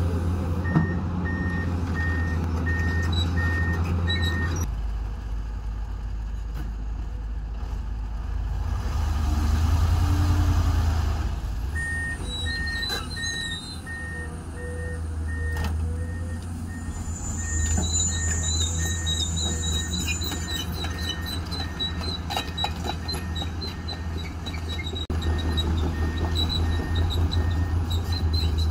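Dump truck's diesel engine running steadily while its raised tipper bed empties a load of soil, with a warning alarm beeping about twice a second, stopping for several seconds early on and then sounding again for most of the rest.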